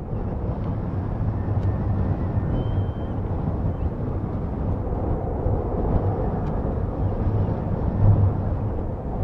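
Outdoor airport ambience: a steady rumble of distant jet aircraft with wind buffeting the microphone in uneven low gusts.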